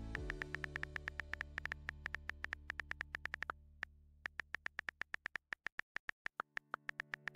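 Rapid keyboard typing clicks, about eight a second, with a short pause just past the middle. Under them runs soft synthesizer background music that fades out partway and comes back near the end.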